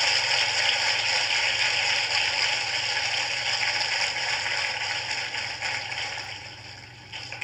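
Large audience applauding steadily, dying away over the last couple of seconds.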